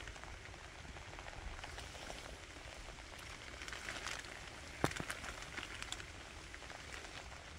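Rain falling steadily, with scattered drops ticking close by and one sharp snap about five seconds in.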